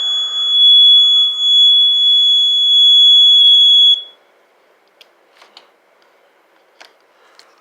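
Homemade 555-timer circuit driving a small speaker, giving one steady high-pitched electronic tone that cuts off suddenly about four seconds in. A few faint clicks follow.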